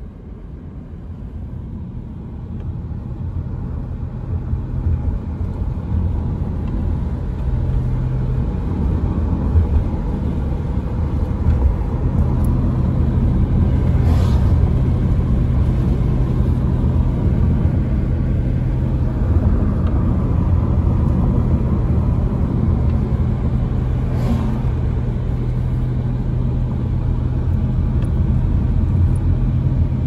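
Car driving, heard from inside: a steady low road and engine rumble with a low hum, growing louder over the first few seconds and then holding steady. Two brief swishes come about ten seconds apart.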